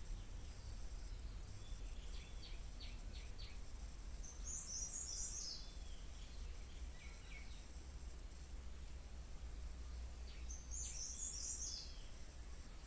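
Small birds chirping: two quick runs of high chirps about six seconds apart, with a few shorter, lower chirps between them, over a steady low hum.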